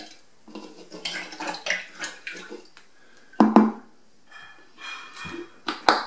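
Handling sounds of a metal teaspoon and a plastic soap bottle at a water-filled plastic tumbling barrel. A run of light clatter and water sounds comes first, then two loud knocks about halfway through and sharp clicks near the end.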